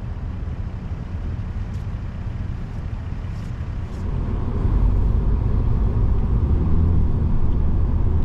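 Vehicle engine and driving noise heard from inside the cabin, a steady low rumble that grows louder about four seconds in.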